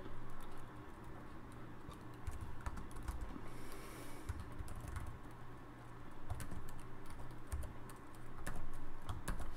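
Typing on a computer keyboard: a run of irregular key clicks with short pauses between them.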